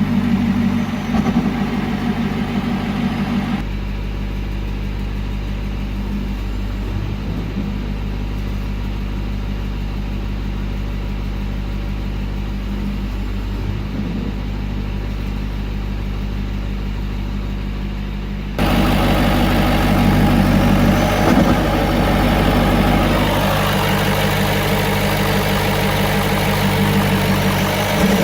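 2011 Ford Super Duty's 6.7 L Power Stroke V8 turbodiesel idling steadily, with the turbo flutter this truck gets at idle once warm. The owner thinks the wastegate needs adjusting. The sound changes abruptly twice and is louder and fuller in the last third.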